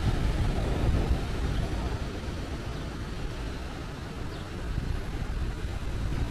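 Wind buffeting the camera's microphone: an uneven low rumble, strongest at the start, easing in the middle and picking up again near the end.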